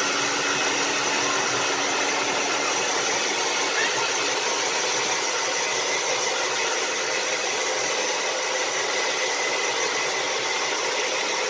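Handheld hair dryer blowing steadily onto a newborn puppy to dry and warm it: an even rush of air with a faint motor whine.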